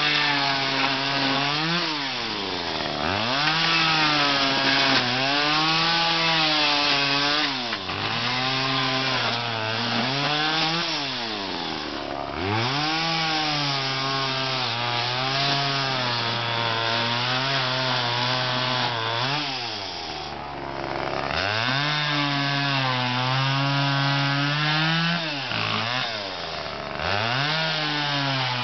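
Homelite chainsaw cutting through an old couch's wooden frame and upholstery. The engine speed keeps sagging and recovering as the chain bites, and it drops back to idle and revs up again about five times between cuts.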